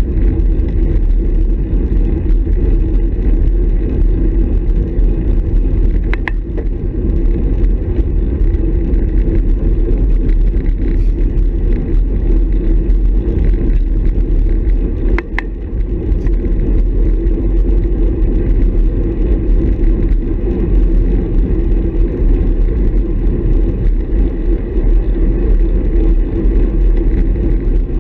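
Steady wind rush and tyre noise picked up by a handlebar-mounted camera on a road bike riding at speed, with two sharp clicks about six and fifteen seconds in.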